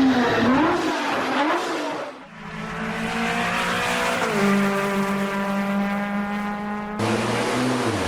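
GT sports car engine, its pitch swinging up and down several times, then, after a brief dip, holding a steady note that drops slightly partway. Near the end it cuts suddenly to a different, lower-pitched engine recording.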